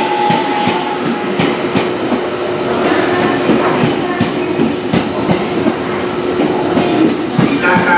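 JR E231 series 800-subseries electric train pulling into the station, its wheels clicking over rail joints as the cars roll past. A steady hum runs underneath.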